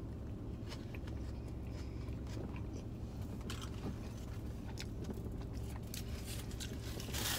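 A person chewing a mouthful of hot dog with mustard, relish, ketchup and onion, with small wet mouth clicks, over a steady low hum in a car cabin. A louder rustle comes near the end.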